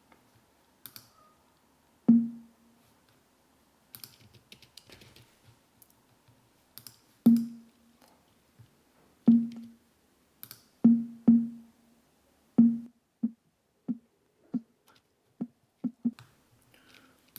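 Short, low-pitched electronic beeps from the browser-beep library, one per step of a sorting animation; they come at uneven gaps at first, then closer together and shorter toward the end. Faint computer-keyboard typing clicks fall between them.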